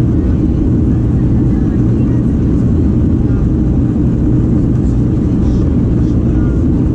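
Steady low rumble inside the cabin of a Boeing 737-800, from its CFM56 turbofan engines and the airflow over the fuselage.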